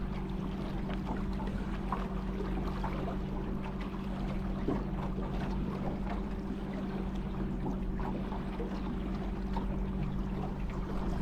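Water lapping and trickling around a kayak, with small splashes, over a steady low hum.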